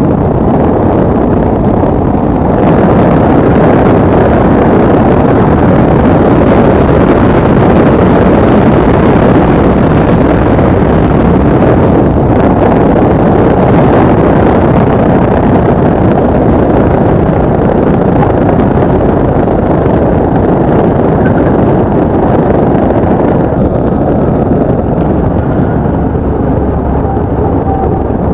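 Loud, steady rush of air around the cockpit of a Schweizer SGS 2-32 glider and over the microphone on the landing approach, with no engine. It grows louder a couple of seconds in and eases off in the last few seconds as the glider comes down onto the runway.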